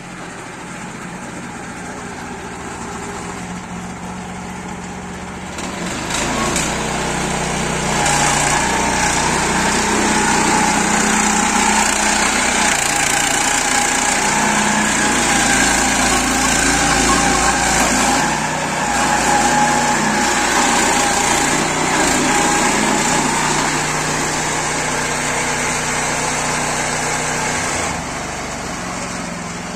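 Lifan petrol engine of a tracked mini-tractor running as the machine is driven; about six seconds in it speeds up and gets louder, with a steady whine above it, and it drops back to a lower speed near the end.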